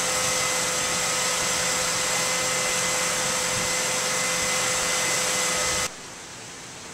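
Motor-driven fan or blower running steadily: an even rush with a fixed whine on top, cutting off abruptly about six seconds in.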